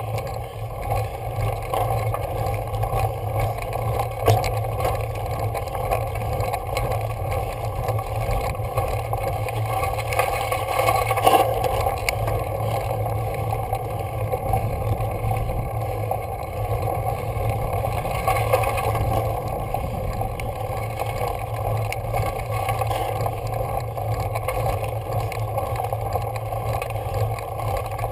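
Steady wind and road noise on a bicycle-mounted camera while riding a road bike, a continuous low rumble with a few faint knocks.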